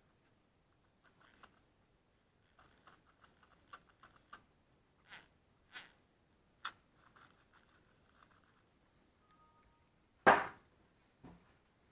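Small clicks, taps and scratches of small hard parts being handled, with one loud sharp knock about ten seconds in and a softer knock a second later. No motor is running.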